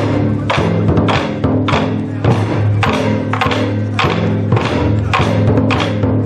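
Japanese taiko drums played together by an ensemble: a driving rhythm of heavy stick strikes, a few a second, over the drums' low ringing boom.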